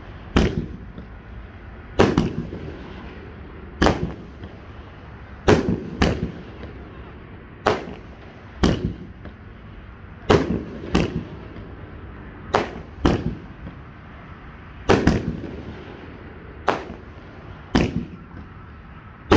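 A 16-shot, 2-inch consumer fireworks cake (Brocade Crown) firing: a long run of sharp bangs from the shells bursting overhead, one every second or two, some coming in quick pairs, each bang trailing off in a short echo.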